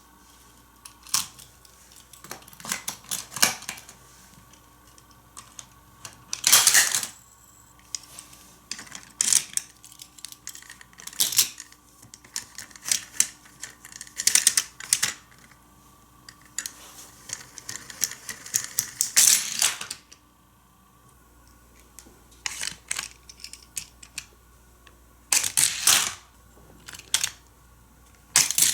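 Hot Wheels die-cast cars running through plastic Trick Tracks stunt pieces: repeated sharp clicks, snaps and clattering rattles, with longer rattling runs about six and a half seconds in and again near nineteen seconds.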